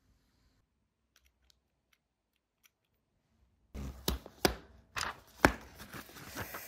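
A few seconds of near silence with faint ticks. Then papers and a booklet are handled on a glass tabletop: several sharp taps and knocks as things are set down and slid on the glass, with paper rustling.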